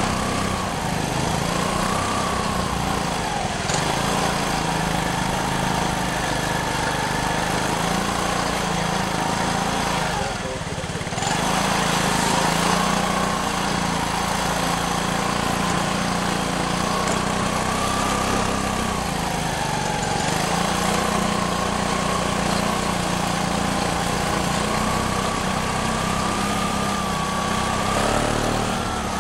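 CFMoto NK400 parallel-twin motorcycle engine running while riding, its pitch rising and falling gently with the throttle over a steady rushing noise. The engine note dips briefly about ten seconds in.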